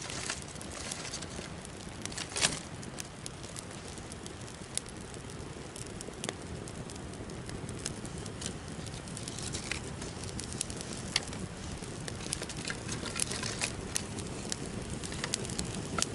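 A freshly lit campfire of dry twigs and birch bark burning, with a steady hiss and scattered sharp crackles and pops that come more often in the second half as the kindling catches.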